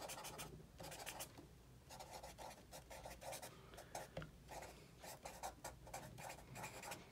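Sharpie marker scratching faintly across paper in quick short strokes, writing out a line of words.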